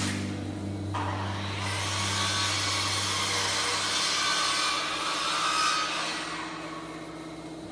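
A power saw cutting through wood: the motor hums steadily, and the cutting noise starts about a second in and tails off near the end.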